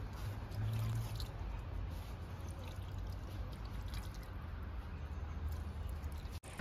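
Water trickling and dripping from a metal vessel onto a stone shivling, a steady pouring sound that cuts off suddenly near the end.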